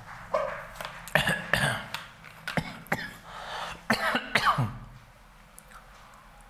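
A man coughing over and over in short, loud bursts and clearing his throat, a fit lasting about four seconds.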